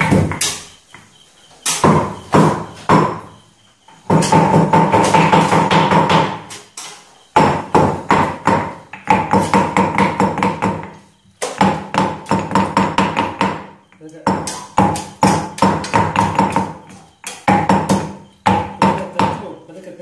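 Whole spices being pounded in a stone mortar with a pestle: runs of quick, ringing strikes, several a second, broken by short pauses.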